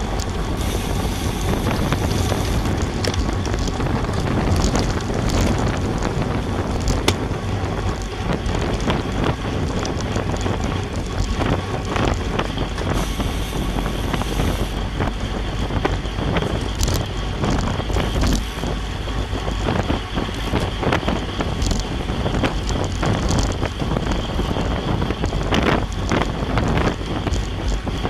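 Steady wind buffeting a camera microphone on a road racing bike moving at about 26 to 31 mph, with scattered clicks and knocks.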